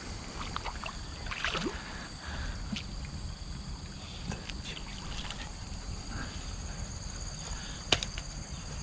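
Light water splashing as a small hooked fish is played at the surface, over a low rumble of wind or handling on the microphone and a steady high insect drone. A single sharp click comes near the end.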